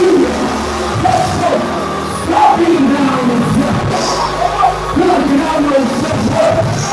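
Gospel praise music: a man sings and shouts through a microphone and PA over instrumental accompaniment with steady held bass notes.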